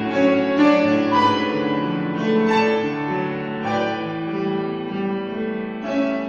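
Piano playing classical music: chords and a melodic line with fresh notes struck every half second or so, with no voice.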